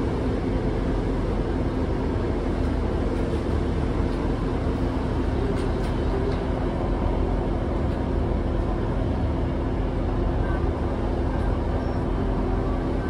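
Steady running noise inside a Class 150 Sprinter diesel multiple unit: a constant low drone from its Cummins diesel engine mixed with a rumble, holding an even pitch and level throughout.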